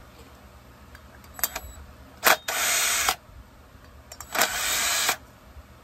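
Handheld cordless power tool run in two short bursts, each under a second, about two seconds apart, with a few light clicks shortly before the first.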